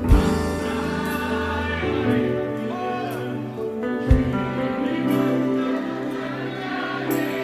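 Live worship music between sung lines: sustained chords held, with a deep thump at the start and again about four seconds in.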